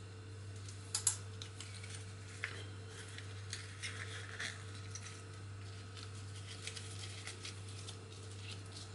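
A small plastic zip-lock bag crinkling and rustling as it is handled and opened, with a few sharp clicks, the loudest about a second in. A steady low hum runs underneath.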